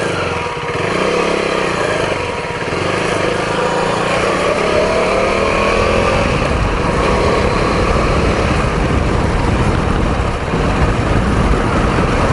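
KTM Duke 390 single-cylinder engine revving up and down about a second in, then running on under heavy wind noise on the microphone as the motorcycle rides on. The bike is down to its last fumes of fuel.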